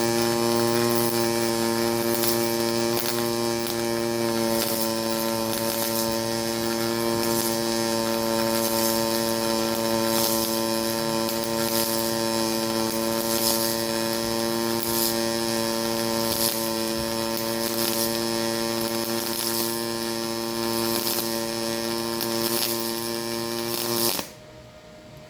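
HTP Pro Pulse MIG welder arc running on 0.030 wire: a steady, evenly pitched pulsing buzz with faint ticks about once a second. The arc cuts off abruptly near the end.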